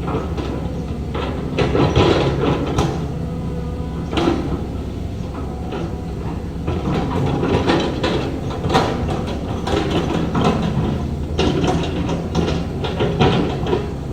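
Heavy diesel earthmoving machine running steadily, with repeated metallic clanks and scraping from its working parts, loudest about two seconds in and again near the middle.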